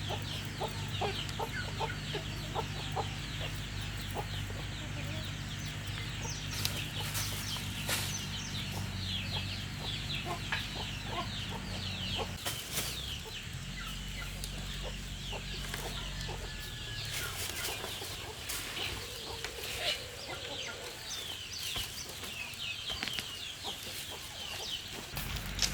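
Chickens clucking, with many short high peeps, over scattered clicks and knocks and a low steady hum.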